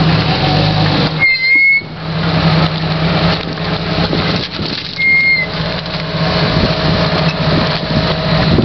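Jeep Cherokee XJ's engine running at low revs as it crawls over rocks, under rough noise. Two short, high whistles sound over it, one about a second in and one about five seconds in.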